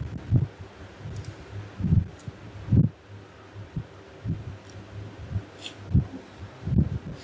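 Dull low thuds at irregular intervals over a steady low electrical hum, with a few faint sharp clicks: desk and mouse handling noise picked up by the microphone while working at a computer.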